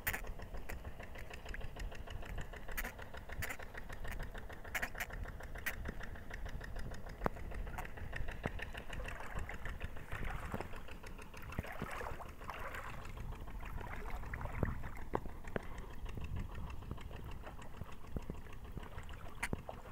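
An engine running steadily, with a low rumble and a fast, even ticking, and a few sharp clicks scattered through it.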